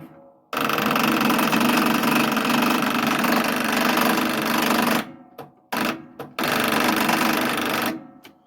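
Lawnmower's electric starter cranking the engine in several tries without it catching: one long crank of about four and a half seconds, then two short ones and a longer one near the end. The battery is being jumped through kudzu vines and is not giving enough to start it.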